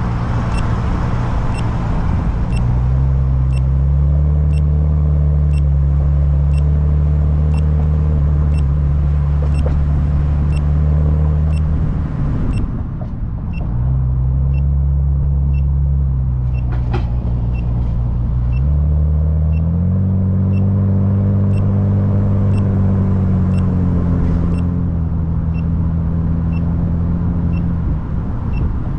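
A car engine and road noise while driving, the engine note dropping and rising several times as the speed changes. Through most of it a short high beep repeats evenly, about once a second.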